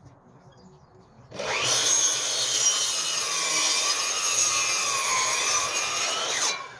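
Makita sliding mitre saw running and cutting through a timber sleeper. It starts about a second in, runs steadily for about five seconds with its pitch sagging slightly under load, then cuts off sharply near the end.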